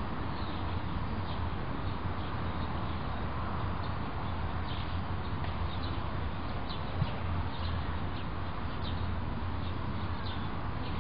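Steady outdoor background noise with a low hum. Short, high chirps of small birds come repeatedly from about four seconds in, and there is a single sharp tap about seven seconds in.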